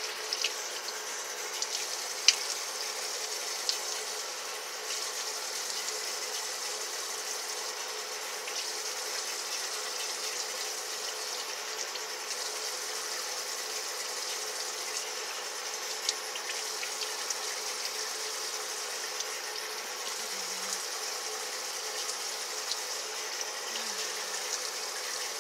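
Bathroom sink tap running steadily into the basin while a face is rinsed with cupped hands, with a couple of brief splashes.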